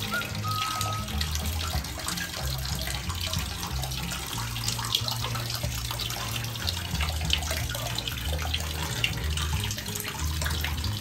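Water splashing and sloshing as a small pet monkey paddles and swims, over background music with a low, stepping bass line.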